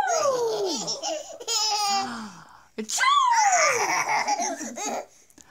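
An 18-month-old toddler laughing: two long, high squeals that fall in pitch, about three seconds apart, with quick choppy bursts between them.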